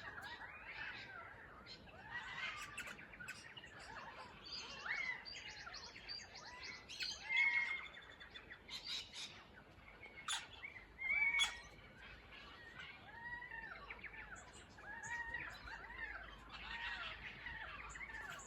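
Morning chorus of Australian birds, currawongs and parrots, calling over one another: many short rising-and-falling calls with sharp chirps, a few louder calls about seven and eleven seconds in.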